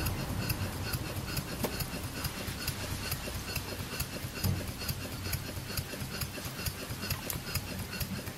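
Stuart No. 4 model steam engine running slowly on compressed air, with a quick, even beat of exhaust puffs and valve-gear clicks. It is turned down close to its slowest speed, on the point of stalling.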